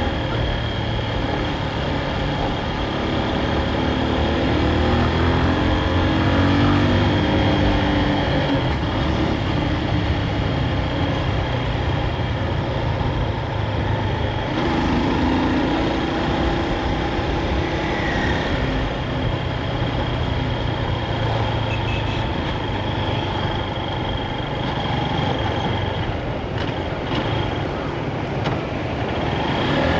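Honda CB223S's air-cooled single-cylinder four-stroke engine running while the bike is ridden, its note rising and falling as the throttle and speed change.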